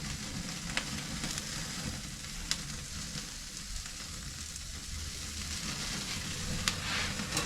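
Steaks and buttered shrimp sizzling over a hot charcoal grill, a steady hiss broken by three sharp pops.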